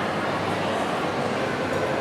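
Busy shopping-mall store ambience: a steady wash of many indistinct voices and general crowd bustle, with no single sound standing out.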